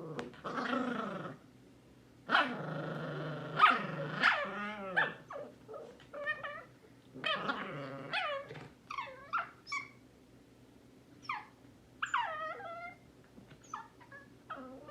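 Two dogs tussling over a blanket: rough growling for the first few seconds, then a string of short, high yips and whines.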